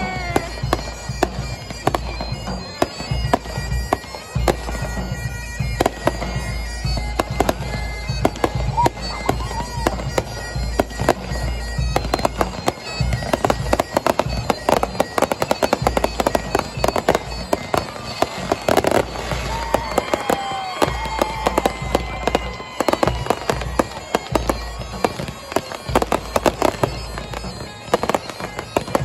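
Fireworks display: a dense, continuous string of bangs and crackles, with a few whistling shells gliding in pitch.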